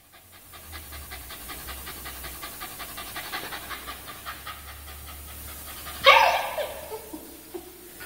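Parson Russell terrier panting rapidly and evenly with its mouth open, winded from tug-of-war play. About six seconds in there is one short, loud cry with falling pitch.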